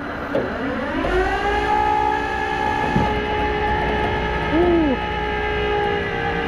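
Tow truck working under load: its engine or hydraulic drive whines up in pitch over about the first second, then holds a steady whine. Two brief squeals come through, about halfway through and a little later.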